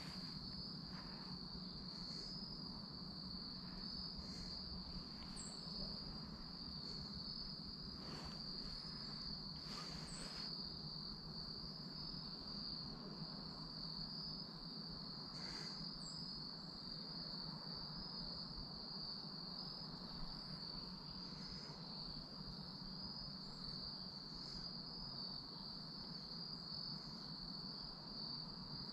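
Insects trilling in a steady, unbroken high-pitched drone, with a short, very high chirp every few seconds.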